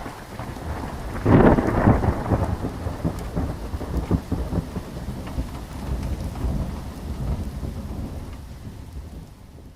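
Thunderstorm sound effect: steady rain with a loud thunderclap rumbling about a second in, then rain and fading rumble that die away near the end.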